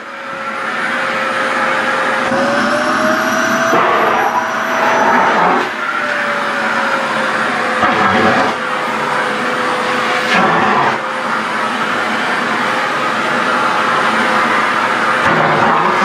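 SHARP EC-KP7F-A canister vacuum cleaner running at suction, its nozzle pulling at loose skirt fabric. The motor whine rises a little for a few seconds, then settles back, and the rushing noise dips and changes briefly several times.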